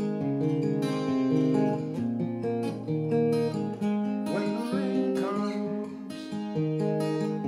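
Acoustic guitar played by hand in an instrumental passage, chords and single notes picked and ringing over one another.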